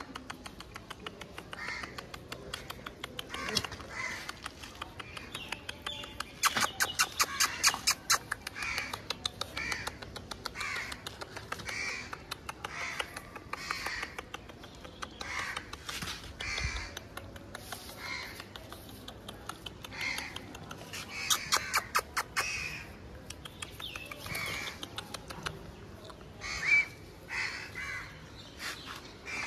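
A bird calling over and over, short calls about one a second through most of the stretch, busiest in two runs.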